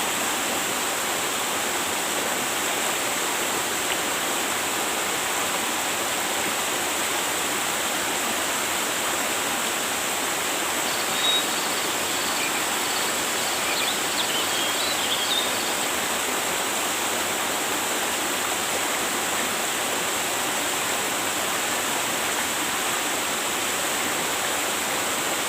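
River water rushing steadily, an even hiss with no breaks. A few faint high chirps come about halfway through.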